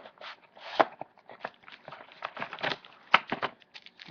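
A trading-card box's plastic wrap and cardboard being handled and opened by hand: a string of irregular crackles and rustles.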